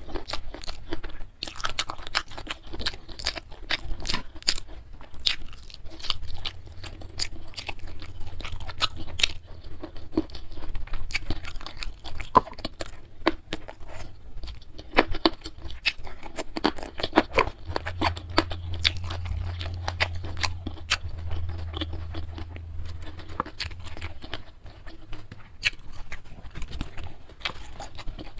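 Close-miked chewing of a mouthful of food, a steady run of wet mouth clicks and small crunches.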